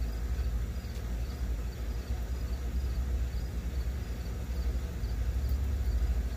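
A steady low rumble with crickets chirping faintly and evenly behind it.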